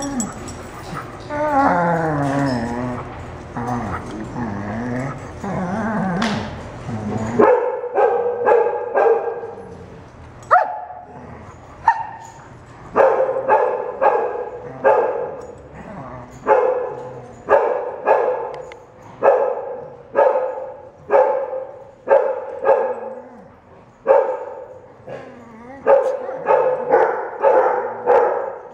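Dogs whining and yipping with wavering, rising and falling pitch for the first several seconds. Then a dog barks over and over, one or two short barks a second.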